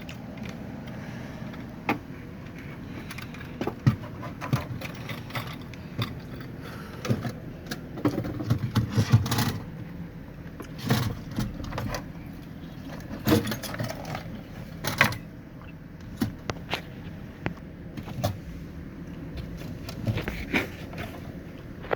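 Hand tools and metal parts clinking, knocking and scraping in irregular clicks while a new fuel pump is fitted. A steady low hum runs underneath.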